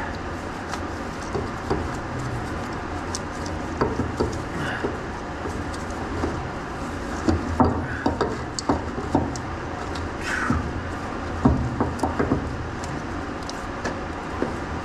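Scattered metallic clicks, taps and knocks of hand work on a truck's power steering pump and its hose fittings as the pump is fitted into place, over a steady low background noise. One short falling squeak comes about ten seconds in.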